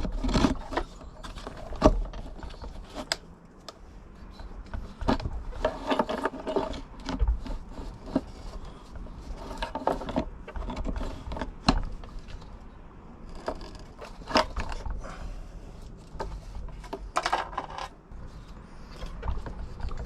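Irregular metallic knocks, clinks and scrapes as a diesel air heater is handled and fitted back into its mounting compartment.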